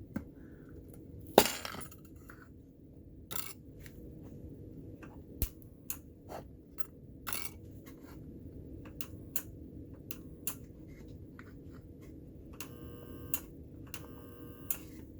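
Homemade microwave-transformer spot-welding pen: scattered metallic clicks and taps as its electrodes are pressed onto a metal piece, with a sharp crack about a second and a half in. A buzz lasting about two seconds comes near the end.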